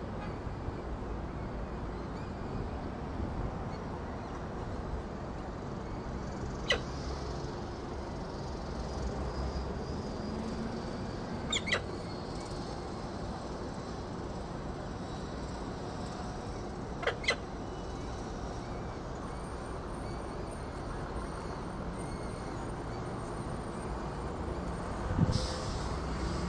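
Peregrine falcon nest ledge: a steady low rumble of background noise, broken by a single short, sharp chirp and then two quick double chirps a few seconds apart, typical of a chick peeping during a feeding. A brief hissy burst comes near the end.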